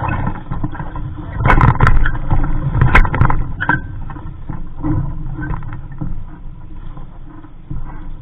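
Wind rumbling on the microphone and water splashing against the hull of a small sailing dinghy, with a cluster of sharp knocks and splashes between about one and a half and four seconds in.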